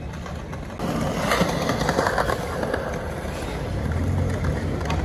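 Skateboard wheels rolling over plaza pavement with a few sharp clacks, growing louder about a second in, over a low rumble.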